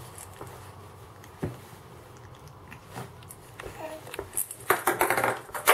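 A baby shaking a small plastic ball rattle: a few scattered clicks, then a burst of fast rattling in the last second and a half.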